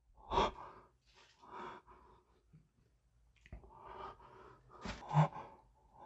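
A man breathing in short, uneven breaths, several separate puffs spread across a few seconds.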